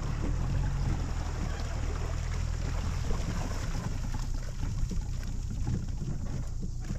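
Mercury four-stroke outboard motor running low at idle, a steady low hum that weakens about halfway through, with wind buffeting the microphone.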